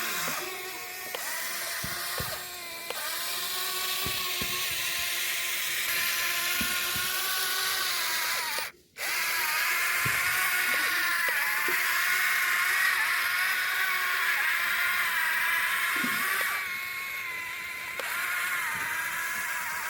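Electric motors of a toy RC excavator whining as it digs and swings, the pitch dipping and recovering as the motors take load, with occasional small clicks. The sound cuts out for a moment about nine seconds in.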